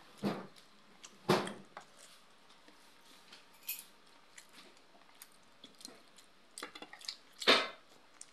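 Close-miked eating sounds: chewing and lip smacking over boiled pork and rice eaten by hand, with three louder wet mouth noises and a few light clicks of dishes and cutlery.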